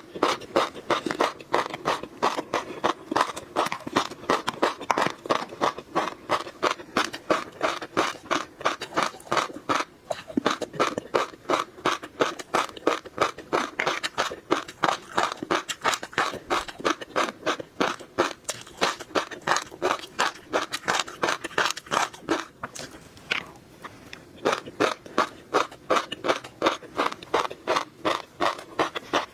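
Close-miked chewing of crunchy tobiko (flying fish roe): a fast run of crisp crunches and pops, about three or four a second, with a brief lull about three-quarters of the way through.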